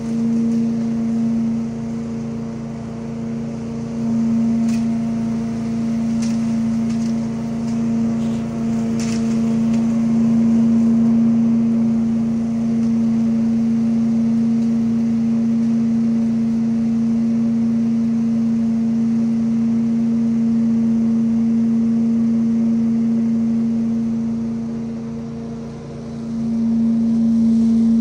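Trailer-mounted leaf vacuum loader running steadily at work, a constant engine-and-fan drone with a strong hum. A few sharp ticks come between about four and nine seconds in, and the drone dips briefly near the end before picking back up.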